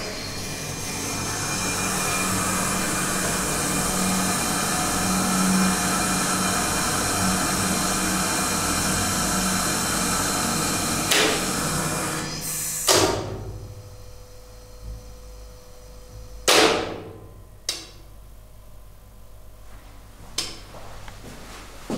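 Hydraulic pump motor of a KONE hydraulic freight elevator's power unit running with a steady hum and whir. It shuts off a little past halfway with a loud clunk, leaving a quieter steady hum. A few seconds later the controller's relays click sharply three times.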